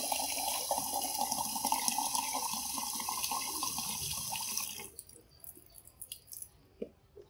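Tap water running steadily into a plastic jar as it fills, cutting off sharply about five seconds in. A few light knocks follow as the jar is set down.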